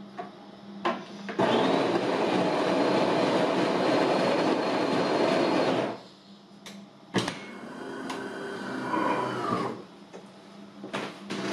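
DeLonghi Magnifica ESAM 3000.B bean-to-cup espresso machine: a click as its button is pressed, then its built-in burr grinder grinds beans loudly for about four and a half seconds and stops abruptly. A clunk follows, then a quieter motor whir that rises and falls in pitch as the brewing unit moves into place, and a few clicks near the end.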